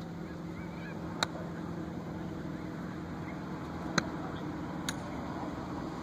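Golf clubs striking balls on a driving range: three sharp clicks, about a second in, around four seconds in (the loudest) and just under a second later.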